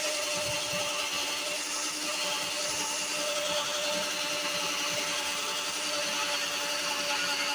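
Cordless drill running at a steady speed, drilling a hole into the car's front wing panel beside the headlight: an even motor whine that doesn't change pitch.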